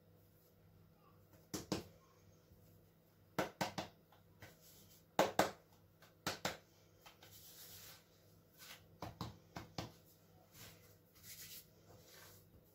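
Hands working soft bread dough: scattered small knocks, taps and rustles as a piece of parsley dough is pulled from the bowl, rolled into a ball and set down on a cloth.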